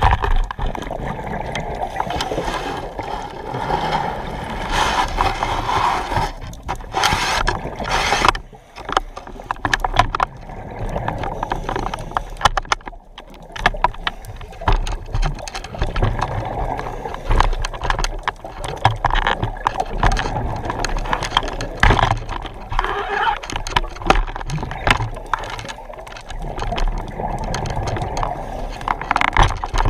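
Underwater sound of a scuba diver breathing through a regulator: bubbling, rattling exhalations and hissing inhalations that rise and fall every few seconds, with brief lulls between breaths.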